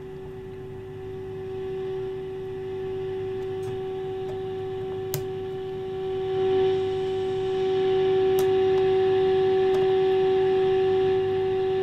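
Steady mid-pitched test tone from the speaker of an Emerson 518 All American Five tube radio. It is the signal generator's modulated 455 kHz test signal coming through the IF stage. The tone grows louder in steps as the IF transformer trimmers are turned to peak the signal, with a few faint clicks from the trimmer adjustment.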